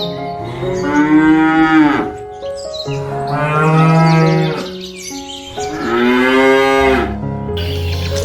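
Cattle mooing: three long calls, each rising and falling in pitch.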